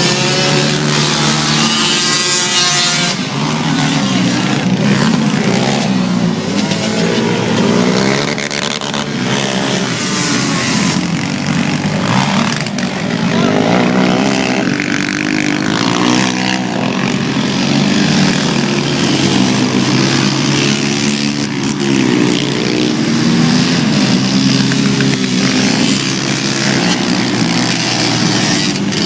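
Several racing ATV and three-wheeler engines running hard around a dirt oval. The overlapping engine notes rise and fall as the machines rev through the turns and pass by.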